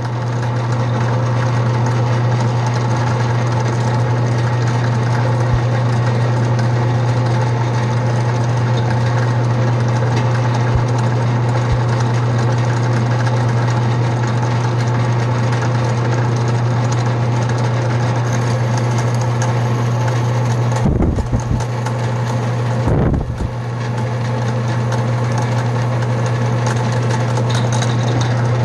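Electric drill running steadily as it bores out a stripped neck-bolt hole in the wooden neck of a 1960s Yamaha bass, re-drilling it for a glued-in dowel. The steady motor hum dips briefly twice, about 21 and 23 seconds in.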